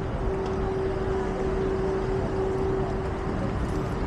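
Street traffic noise: a low, even rumble with a steady hum that stops a little before the end.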